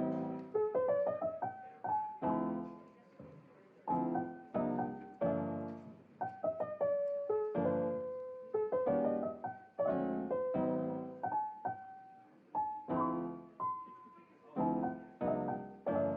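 Calm background piano music: single notes and chords struck one after another, each ringing and fading.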